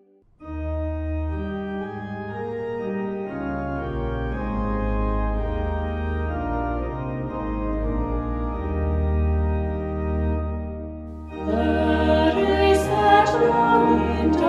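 Church organ starts about half a second in, playing sustained chords over a deep bass line as the introduction to a hymn. About eleven seconds in, voices join, singing the first verse over the organ.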